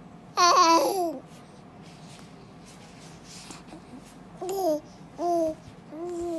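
Young baby cooing and babbling: one loud, high coo falling in pitch about half a second in, then three short coos near the end.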